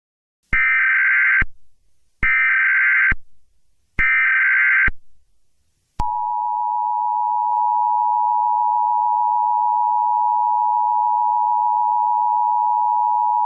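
Emergency Alert System tones: three short bursts of SAME header data about a second and three-quarters apart, then from about six seconds in the steady two-tone attention signal.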